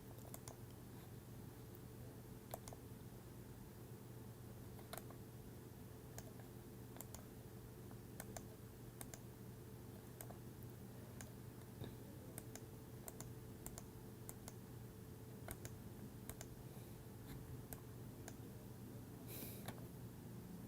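Faint, irregular clicking of a computer mouse and keys as CAD software is worked, over a low steady hum.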